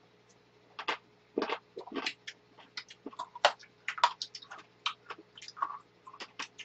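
Close-up eating noises: chewing and mouth smacks, an irregular run of short clicks several times a second, starting about a second in.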